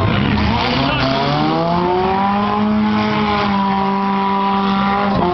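Four-cylinder demolition-derby car engines running hard, one climbing in pitch about a second in and then holding a high, steady rev over a rushing noise.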